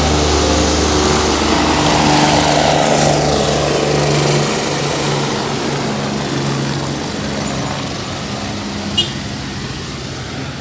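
Steady engine noise with a pitched hum under a rushing haze, easing a little in level about halfway through, with one short sharp click near the end.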